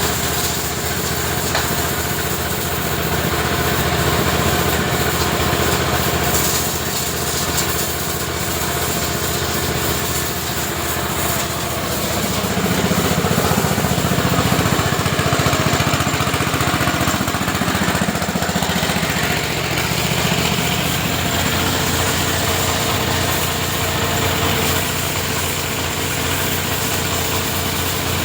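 Motorcycle-wash pressure washer running steadily, its motor and pump humming under the hiss of the water jet.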